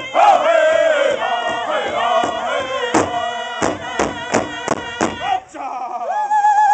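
Powwow drum group singing a contest song in high, wavering voices. In the middle come a run of loud drumbeats, about three a second, and near the end a single long, high, steady note is held.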